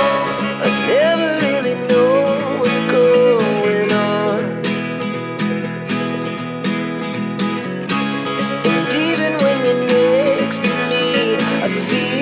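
Background music: a song with plucked acoustic guitar and a sung melody line.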